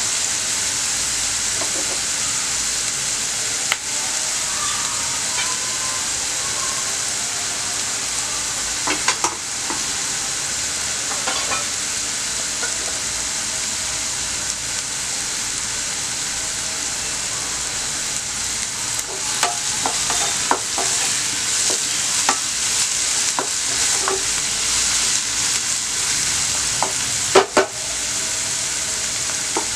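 Chopped onions, green chillies and curry leaves sizzling steadily in hot oil in a nonstick pan as they saute, with a wooden spatula scraping and stirring through them a few times.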